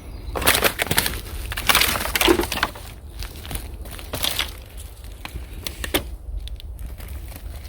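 Earth, roots and dry bamboo litter crunching and cracking as a bamboo shoot is dug out: clusters of crackles in the first three seconds, then single cracks about four and six seconds in.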